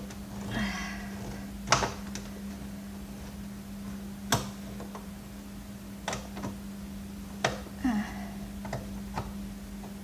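Screwdriver working a screw in a vacuum cleaner's plastic housing: scattered sharp clicks and knocks of the tool and the case, a few seconds apart, with a little scraping, over a steady low hum.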